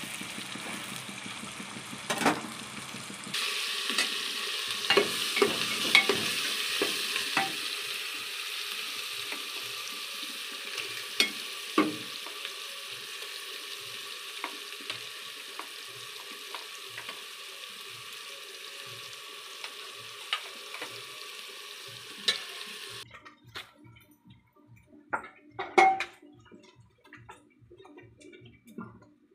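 Hot oil sizzling steadily as paneer and onions fry, with a metal spoon repeatedly tapping and scraping the pan. The sizzle cuts off abruptly about 23 seconds in, leaving scattered spoon taps and one sharp clank a few seconds later.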